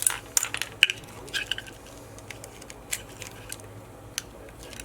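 Plastic housing of a spider-type security alarm tag being pried and cracked open with a tool: irregular sharp clicks and cracks, thickest in the first second and a half, then a few scattered ones.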